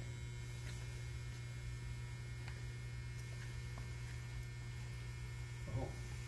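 Steady low background hum, with a few faint ticks.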